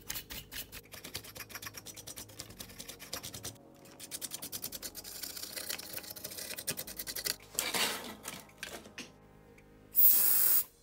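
Toothbrush scrubbing the amplifier's rear-panel jacks and speaker terminals: rapid scratchy brushing strokes. Near the end comes a short loud hiss of aerosol spray, with a briefer hiss a couple of seconds before it.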